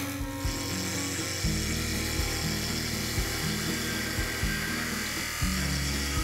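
A parting tool cutting a sizing groove into a beech spindle turning on a wood lathe, a steady hissing cut. Background music with a low bass line runs under it.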